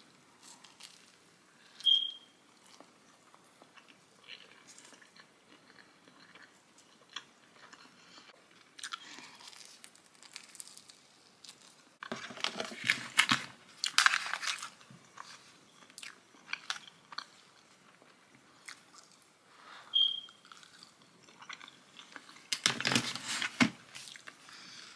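Close-up chewing and biting of a pizza slice, with soft wet mouth clicks throughout and louder bouts of chewing about halfway through and again near the end. Two short high squeaks stand out, one about two seconds in and one near twenty seconds.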